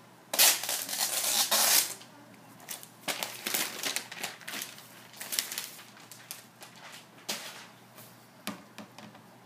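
Packaging being handled: a loud rustle of paper or plastic wrapping lasting about a second and a half, then lighter intermittent rustling of cardboard and a few light knocks as the laptop is handled on a glass table near the end.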